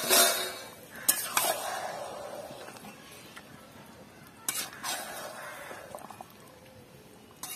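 Metal spatula scraping and stirring chicken in masala in an aluminium kadai, the sauce sizzling as it is turned. Two bouts of scraping, about a second in and at about four and a half seconds, each followed by a sizzle that dies down.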